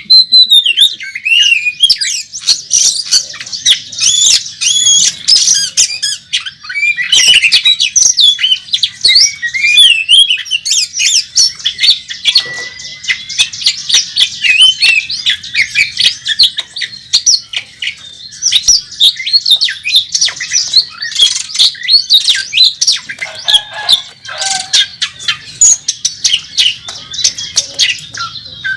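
Oriental magpie-robin (kacer) singing a loud, unbroken torrent of rapid whistles, harsh chatters and squawks, packed with mimicked phrases. It is the agitated, aggressive 'fighting' song of a male worked up against a rival.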